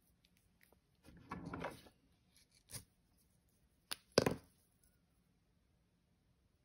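Small glass jar of black pixie beads being handled on a tabletop: a short rustle about a second in, a click, then two sharp knocks around four seconds in as the jar is set down.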